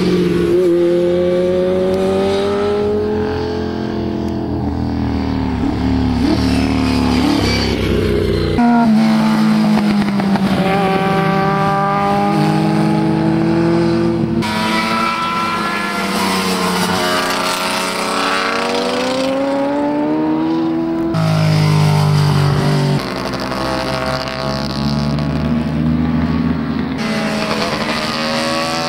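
Sport motorcycle engines ridden hard around a race track, revving up and falling back through the gears as the bikes pass and pull away. The pitch climbs and drops again and again, with abrupt jumps where the recording cuts between passes.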